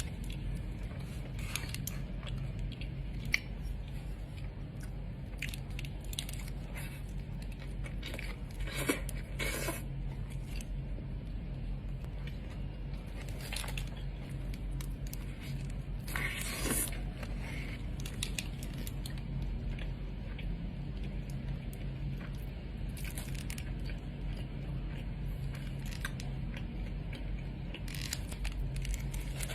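A person biting into and chewing a burrito, with scattered short clicks and crunches over a steady low hum.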